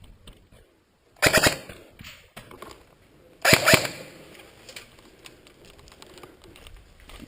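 Jing Gong G36C airsoft electric rifle firing two short bursts about two seconds apart, each a quick rattle of shots.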